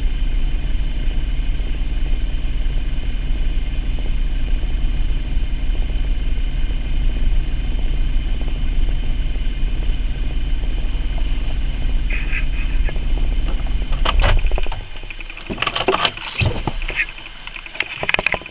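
2003 Mitsubishi Eclipse GT's 3.0 V6 idling steadily, an engine whose owner is chasing a P0300 random-misfire code that shows up only at idle. About fifteen seconds in the engine sound stops suddenly, followed by a few clicks and knocks.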